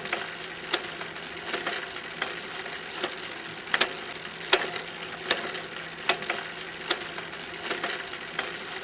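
Bicycle riding along: a steady rolling hiss with a sharp mechanical click about every three quarters of a second.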